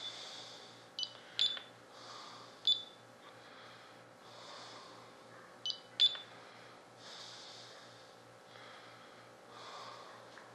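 About six short clicks, each with a brief high beep, as buttons on a radio-control transmitter are pressed to step through its menu while assigning an auxiliary channel. Soft breathing close to the microphone comes and goes between them.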